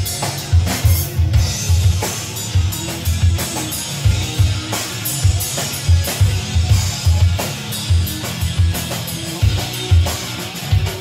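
Live rock band playing an instrumental passage: a drum kit keeping a steady, driving kick-drum beat with cymbal hits, under bass guitar and electric guitar, all amplified through a PA.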